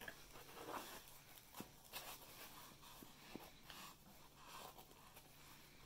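Faint rustling and a few light clicks of a hand pulling a pizza slice from a cardboard pizza box lined with paper.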